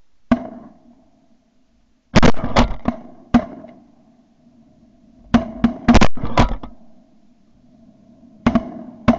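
Volleys of shotgun blasts from several waterfowl hunters firing at ducks: a single shot, then four in quick succession about two seconds in, a faster burst of five around the middle, and two more near the end, each with a short echo.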